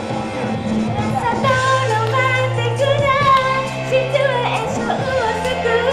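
A woman singing a J-pop anime song live into a microphone over a pop backing track played through loudspeakers.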